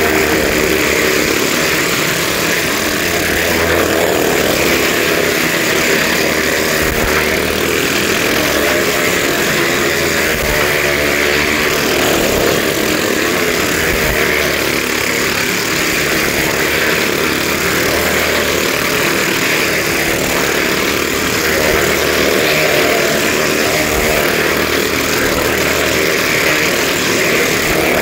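Motorcycle engines racing around the wooden wall of a well-of-death pit, loud and continuous, the pitch rising and falling over and over as the bikes circle.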